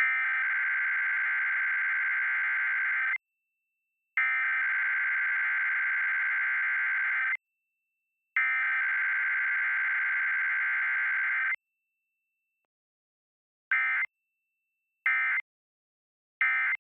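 Emergency Alert System Required Weekly Test on a TV station's audio: the SAME digital header sent three times as identical buzzy data bursts about three seconds long, a second apart. These are followed by three short end-of-message bursts, with no attention tone in between, as is usual for a weekly test.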